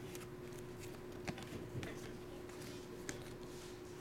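Trading cards being handled and flipped through by hand, with a few light clicks and slides of card stock, over a steady hum.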